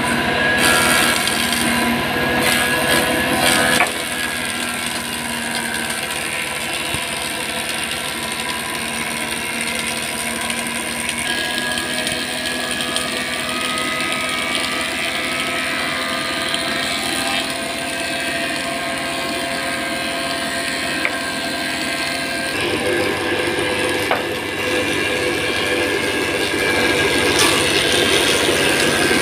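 Belt-driven thickness planer running steadily, its feed rollers drawing a red meranti board through the cutter head. The sound drops in level about four seconds in and shifts again past the middle.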